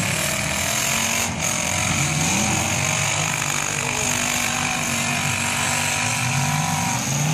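Several demolition-derby pickup truck engines revving at once, their pitch repeatedly rising and falling as the trucks accelerate in the pit.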